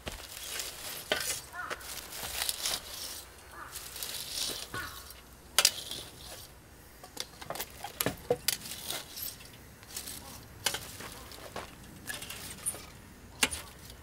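Wood fire burning, crackling and hissing with irregular sharp pops, the loudest about five and a half seconds in and again near the end.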